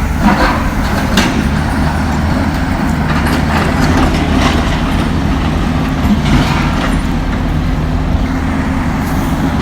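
Cat 329D excavator's diesel engine running steadily, with a few sharp metal clanks and knocks from the scrap being cut and handled.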